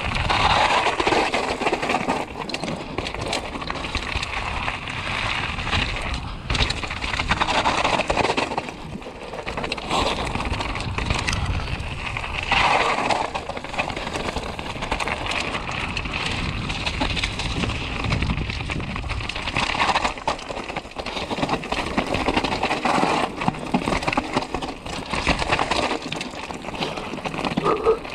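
Mountain bike riding down a loose gravel trail: tyres crunching and rolling over stones, with frequent knocks and rattles from the bike over bumps, swelling and easing as the speed changes.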